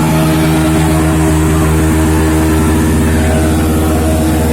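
A vehicle engine running steadily at an even pitch, with a hiss of noise over it.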